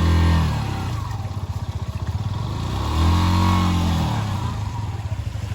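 A vehicle engine running with a steady low throb, revving up and easing off twice: once at the start and again about three seconds in.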